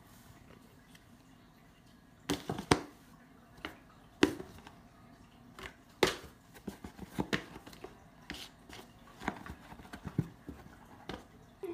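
Cat pawing at and nosing into a cardboard shoebox: irregular knocks, taps and scrapes of paws and the lifting lid against the cardboard.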